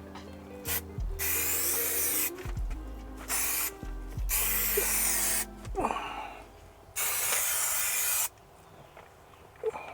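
Aerosol can of spray adhesive hissing in about four separate bursts of one to one and a half seconds, each cut off sharply, as the headliner fabric is coated.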